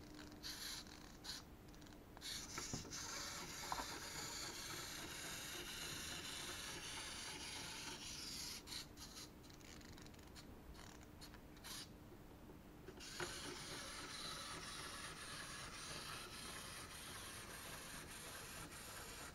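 Small clockwork wind-up motor in a plastic panda model, whirring steadily as it runs down, broken for a few seconds in the middle by irregular clicks, then running steadily again as the toy walks.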